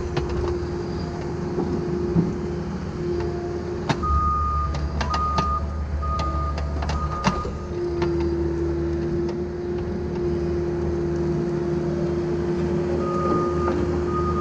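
Cat mini excavator's diesel engine and hydraulics running under load as the bucket digs, with a steady hydraulic whine that drops out and comes back, and sharp knocks of the bucket in dirt and rock. A backup alarm beeps repeatedly from about four to seven seconds in and again near the end.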